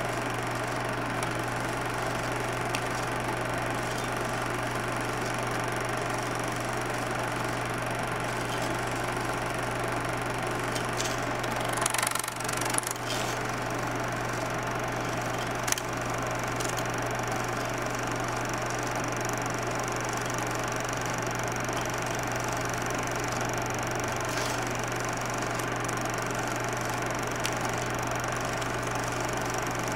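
16mm film projector running: a steady mechanical whir over a low hum, with a brief louder crackle about twelve seconds in and a single click a few seconds later.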